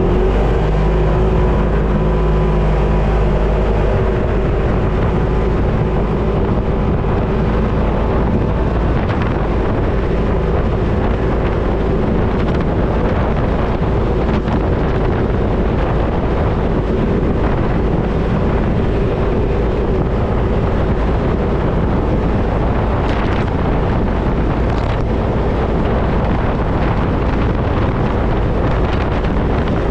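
Off-road vehicle engine running steadily, with wind rumbling on the microphone.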